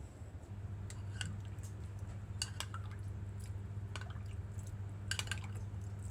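Kitchen utensils and dishes being handled: a few light clinks and taps in small clusters over a steady low hum.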